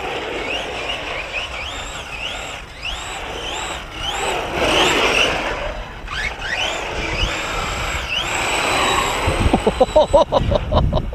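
The electric motor of a BSD Racing Mad Monster 1/5-scale 4WD RC monster truck whines up and down over and over as it is throttled, with tyre noise on pavement. Near the end comes a rapid run of low thumps.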